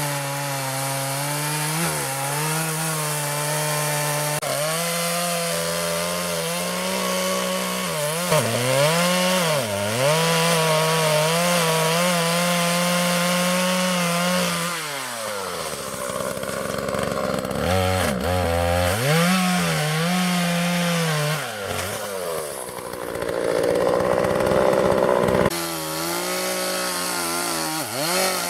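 Two-stroke chainsaw running at high revs while cutting into a tree trunk; its pitch sags again and again as the chain bogs down under load in the cut. About halfway through the engine drops back for a few seconds, then revs up again.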